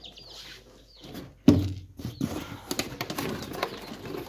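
Newly hatched chicks peeping faintly, with one loud thump about a second and a half in and lighter knocks after it as the box and trays are handled.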